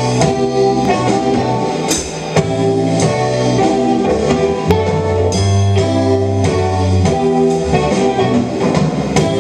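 A live band playing: electric guitar chords and notes over a drum kit with cymbal and drum hits, and low held bass notes beneath.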